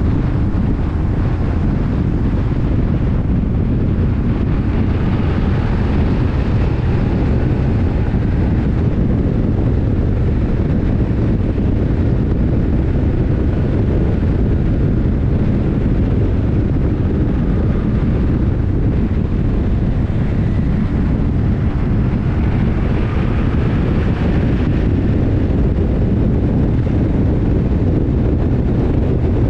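Steady wind rushing over the microphone together with the BMW R1150R's boxer-twin engine running at road speed, its note rising and falling faintly a couple of times.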